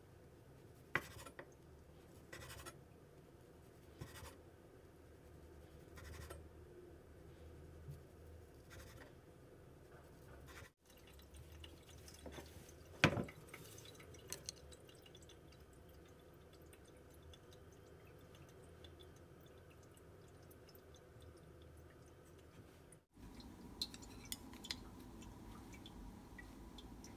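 Faint kitchen handling sounds: a knife slicing a sausage on a wooden cutting board, with a soft tap every second or two. Then chopsticks clink against a ceramic plate, with one sharp clink about 13 seconds in and a few light clicks near the end.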